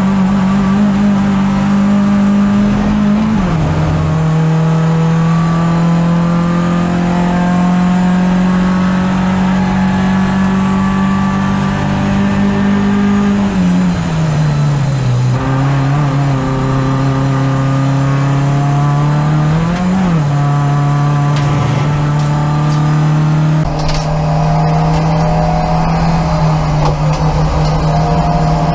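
In-cabin sound of a BMW 318ti Cup race car's four-cylinder engine under hard running, a strong steady engine note that drops sharply about three seconds in, as at an upshift. Midway the pitch falls for a couple of seconds as the car slows, with a quick rev blip a few seconds later, then it holds steady again; in the last few seconds more wind and tyre noise comes in.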